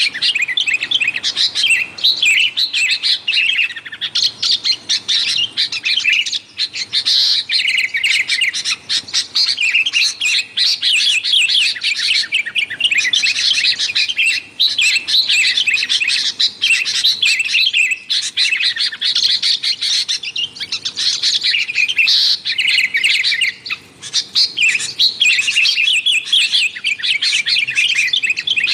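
Sooty-headed bulbuls calling noisily: fast runs of chirping notes that go on almost without a break, pausing only briefly now and then.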